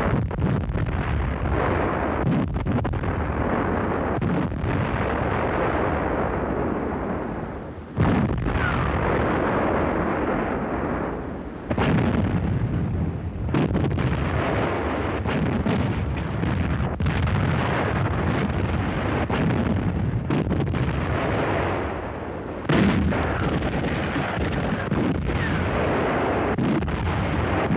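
Artillery firing in a continuous barrage: repeated heavy gun reports with rumbling echoes, and especially sharp blasts about eight seconds in, near twelve seconds, and near twenty-three seconds.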